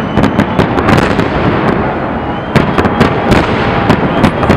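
Aerial firework shells bursting overhead: rapid, irregular sharp cracks and pops over a continuous rumble. The cracking thins out briefly about halfway through, then picks up again in a dense cluster.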